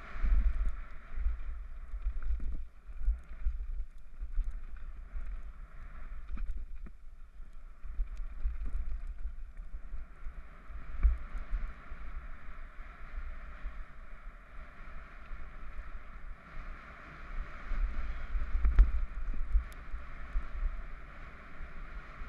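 Rumble and rattle of a Scott Gambler downhill mountain bike descending a rocky gravel trail, heard through a helmet-mounted GoPro HERO3 housing, with wind buffeting the camera. Short knocks from rocks and the bike come through now and then, loudest near the end.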